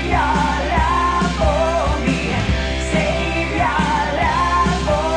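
Rock song with a sung melody over a steady beat.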